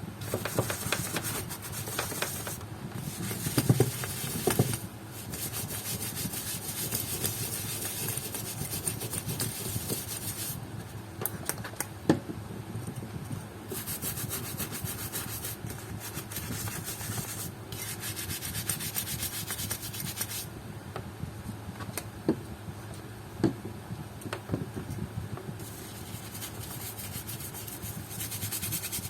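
Leather slippers being scrubbed with a cleaner: a continuous rubbing hiss that strengthens and fades in stretches, with a few light knocks along the way.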